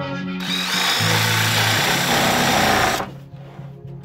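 DeWalt jigsaw cutting through a live-edge wood slab. It runs steadily for about two and a half seconds and then eases off near the end, with background music underneath.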